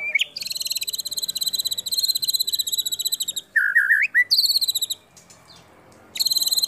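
White-rumped shama (murai batu) singing: long, fast, high-pitched rattling trills, broken about three and a half seconds in by a quick run of loud, lower whistled notes and a short trill, then a pause before another trill starts near the end.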